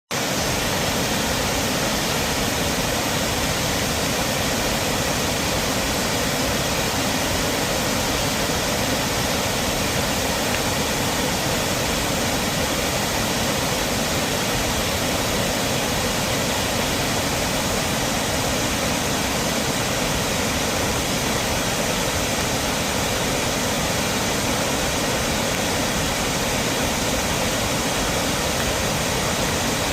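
A large waterfall running at high flow after heavy rain: a steady, dense rush of falling water.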